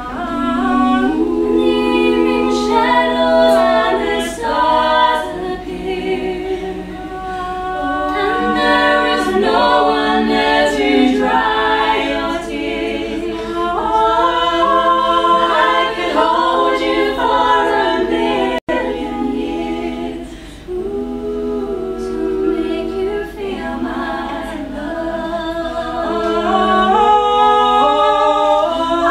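Four women's voices singing a cappella in close harmony, several sustained vocal lines moving together with no instruments. The sound cuts out for an instant about two-thirds of the way through.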